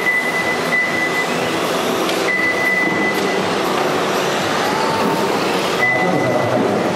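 Electric RC rally cars running on a dirt track: a steady wash of motor and tyre noise, with a thin high motor whine that comes and goes. The sound changes abruptly twice where the footage is cut.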